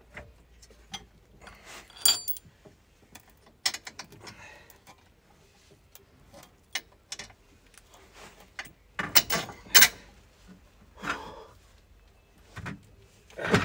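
Scattered metal clinks and knocks from a brake disc and parts being handled and fitted at a car's rear wheel hub. One piece rings briefly about two seconds in, and a louder run of clanks comes about nine seconds in.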